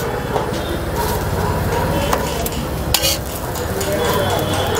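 Metal spatula scraping and clinking on a large flat iron dosa griddle as cut pieces of dosa are lifted off it, with sharp scrapes at the start, about three seconds in, and at the end. A steady low hum runs underneath.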